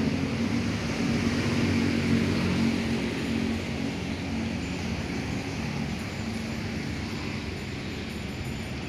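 A vehicle engine's low hum over steady urban traffic noise, slowly fading away.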